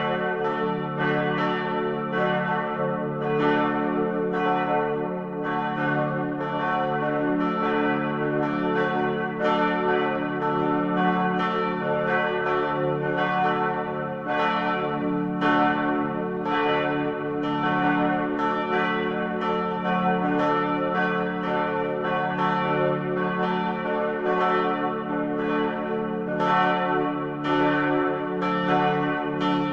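Church bells ringing a continuous peal, several bells struck in quick succession, about two to three strikes a second, their tones ringing on and overlapping.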